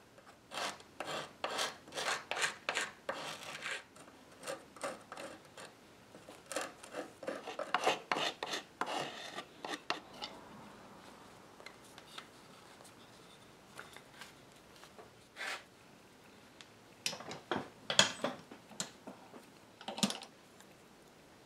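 Steel pliers gripping and twisting a stuck wooden dowel stub in its hole, wood scraping and rubbing in clusters of short strokes, with a pause of a few seconds about halfway.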